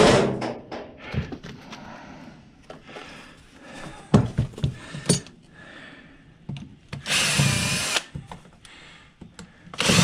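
Ryobi cordless drill running for about a second, backing a screw out of a desk fan's motor housing, with a second short run at the end. Before it, knocks and clatter of tools and metal parts on the workbench, starting with a loud thump.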